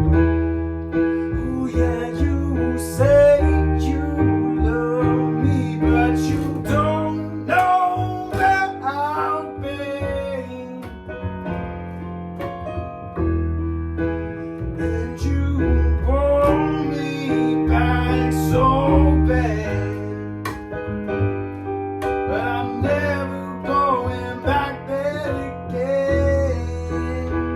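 Band music with keyboard and guitar: a melodic line moves over held chords that change every few seconds.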